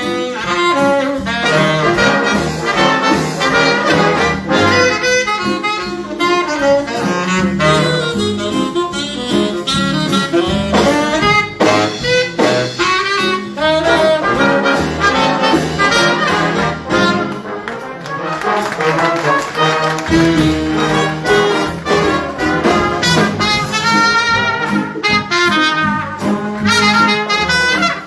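High school jazz big band playing live, with saxophones, trumpets and trombones sounding together.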